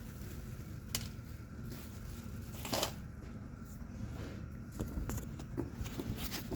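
Sand-casting mold halves being split apart, packed with oily casting sand: scattered soft knocks and scraping, one sharp click about a second in, a louder brief scrape near three seconds, and small clicks near the end. A steady low rumble runs underneath.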